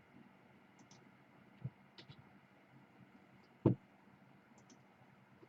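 A few faint clicks as a computer is worked, with one louder short knock nearly four seconds in, over quiet room tone.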